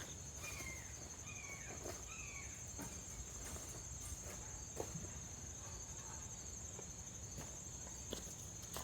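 Crickets trilling in a steady high-pitched drone, with a few short falling chirps in the first few seconds and a few scattered light clicks.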